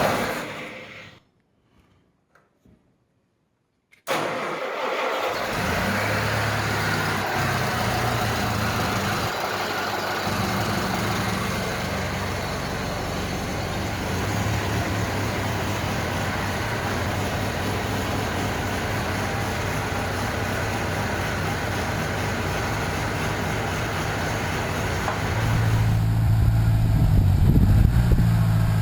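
Gasoline engine of a homemade backhoe, freshly started on choke, running steadily. It comes in abruptly after a few seconds of dead quiet and gets louder and deeper near the end.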